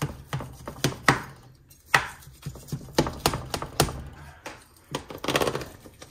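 Cutlery knocking and scraping against dishes as shepherd's pie is cut and dished up: a run of irregular sharp clinks and taps.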